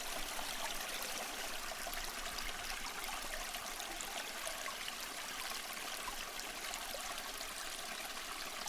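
Water stream running steadily with a continuous trickling rush.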